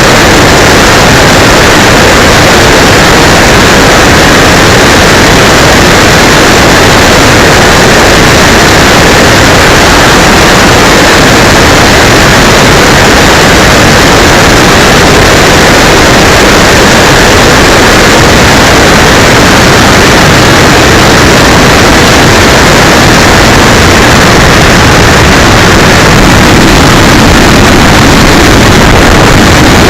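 Steady wind rush and propeller noise from an electric RC model plane in flight, picked up by a keychain camera on board and overloaded into a constant, distorted noise.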